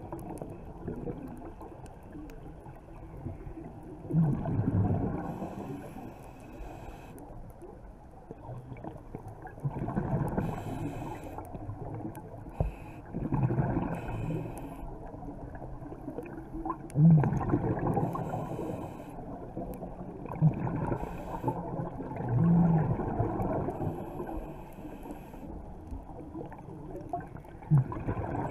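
Underwater sound of a scuba diver breathing through a regulator: gurgling surges of exhaled bubbles every few seconds over a steady low underwater rumble.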